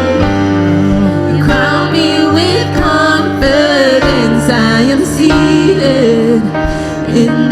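Worship music: a voice singing a wavering melody over instrumental backing with held bass notes.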